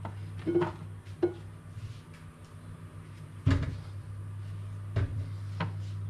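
Kitchen handling noises as cut zucchini pieces are tipped into a bowl and a knife and plastic cutting board are handled on the counter: a handful of separate knocks and clatters, the loudest about three and a half seconds in, over a low steady hum.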